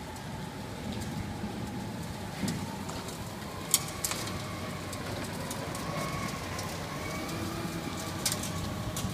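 Factory Cat TR industrial ride-on sweeper running as it sweeps, a steady machine noise with faint wavering tones. A few sharp clicks come through, two close together near the middle and one near the end.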